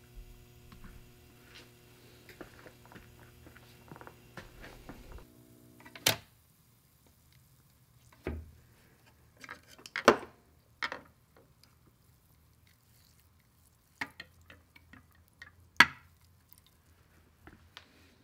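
A steady electrical hum with faint ticking for about five seconds, which cuts off suddenly. Then come several separate sharp clinks and drips around a glass jar of nickel-plating solution as the plated part is handled.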